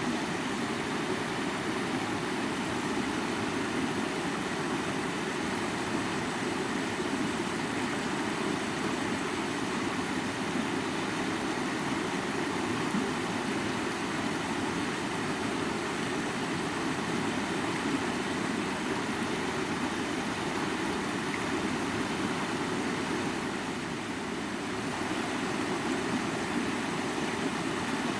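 River water rushing in a steady, even flow, a full low rush with a hiss above it, easing slightly for a moment near the end.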